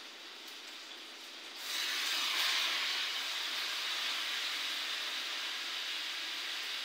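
Kitchen tap turned on about two seconds in, water running steadily into a stainless steel sink.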